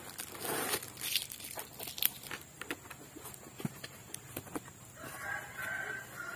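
A cardboard parcel being torn open by hand: short bursts of ripping and crinkling cardboard and paper. About five seconds in, a rooster crows once.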